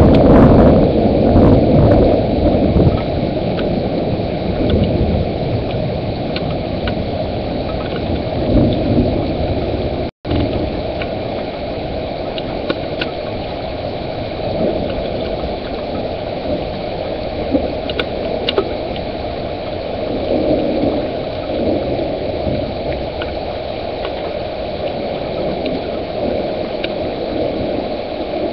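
Thunderstorm: a loud rumble of thunder in the first few seconds, then a steady low rushing of rain with scattered sharp ticks of drops. The sound cuts out for a moment about ten seconds in.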